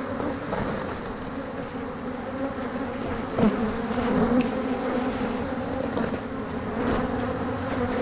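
A large honeybee swarm buzzing loudly in a steady, wavering drone, disturbed as the bees are scraped off foil roof insulation into a tray, with a few light scrapes and knocks.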